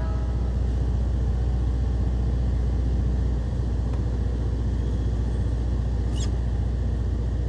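Ice cream truck's engine running with a steady low rumble while its jingle is silent. A brief high squeak comes about six seconds in.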